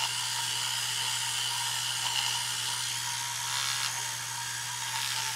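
Electric toothbrush running in the mouth while brushing teeth: a steady high-pitched buzz with a scrubbing hiss.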